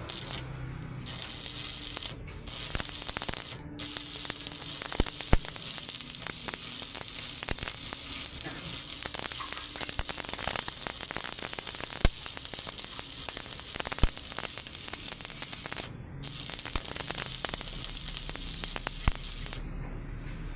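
Electric arc welding: a steady crackling sizzle of the arc that breaks off briefly several times as the welder stops and restarts. A few sharp clicks stand out over it.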